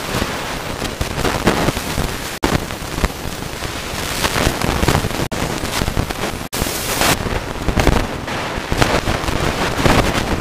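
Longboard wheels rolling over rough asphalt close to a board-mounted camera: a loud, gritty rumble and crackle, with wind on the microphone. It breaks off abruptly three times where clips are cut together.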